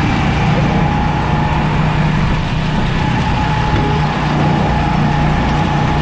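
Go-kart's small engine running steadily while the kart drives round the track, heard from on board. It makes a constant low hum with a steady higher whine over an even rush of noise.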